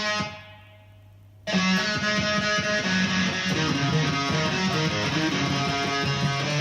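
Amplified Yamaha Pacifica electric guitar with active Seymour Duncan pickups being played, its sound dropping away just after the start as the momentary kill switch is pressed, leaving only a low hum. At about a second and a half the switch is released and the guitar cuts back in abruptly and plays on: the newly fitted kill switch working.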